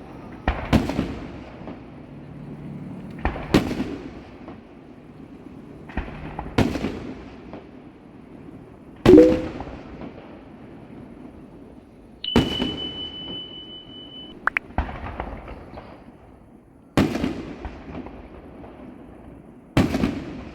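Aerial fireworks bursting: a sharp bang about every three seconds, each with a crackling tail, the loudest about nine seconds in. A steady high whistle sounds for about two seconds midway.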